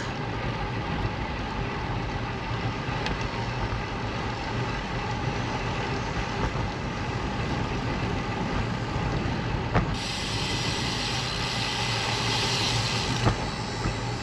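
Steady wind and road noise on a bicycle-mounted action camera while riding. A brighter hiss comes in about ten seconds in and lasts a few seconds.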